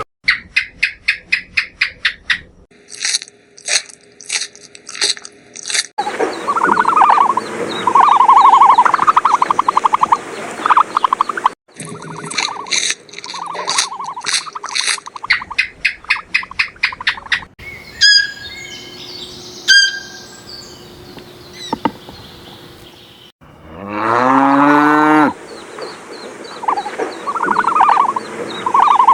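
Farm animals calling in a string of short, abruptly cut clips, including cattle mooing, with one loud call rising in pitch about two-thirds of the way through.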